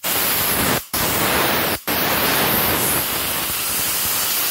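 Compressed-air blow gun hissing as it blows dust off a wooden tabletop, in three blasts: two short ones separated by brief breaks, then a longer steady one.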